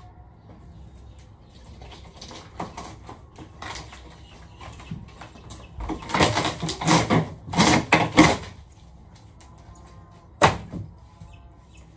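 Scraping and crunching as pieces of torn-out wall material are handled and dragged inside a stripped bus, loudest in a run of bursts in the middle, with one sharp knock near the end.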